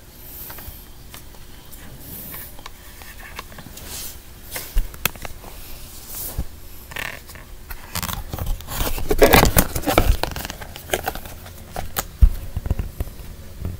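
Phone handling noise: fingers and hands rubbing and scraping against the phone near its microphone, with scattered sharp clicks. It grows busier and is loudest from about eight to ten seconds in.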